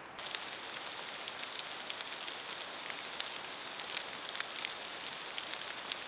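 Steady hiss of a trail camera's recording with a faint steady high whine, dotted with scattered light crackles.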